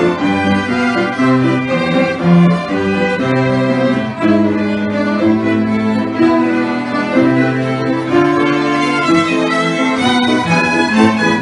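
A small string ensemble of violins and a cello playing together, the violins on the melody over lower cello notes.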